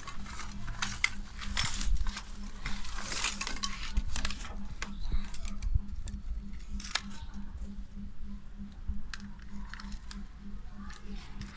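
Irregular clicks, clinks and short scrapes of small metal parts and hand tools being handled while an old soldering gun is worked on, over a faint steady hum.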